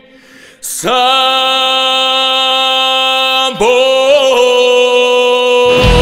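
After a brief hush, a male voice sings two long held notes with no accompaniment, scooping up into the second one, which wavers with vibrato; the full pop-rock band with drums and bass comes back in near the end.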